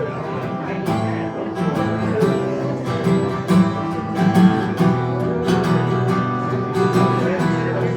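Acoustic guitar strummed in a steady rhythm, the instrumental lead-in to a live folk punk song before the vocals start.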